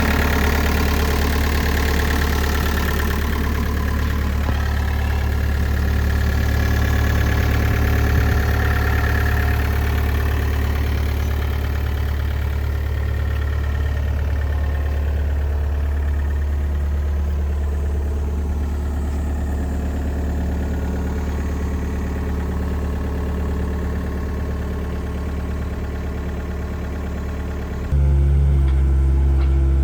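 Kobelco SK50SR-5 mini excavator's diesel engine running steadily at idle. Near the end the sound abruptly gets louder and changes pitch.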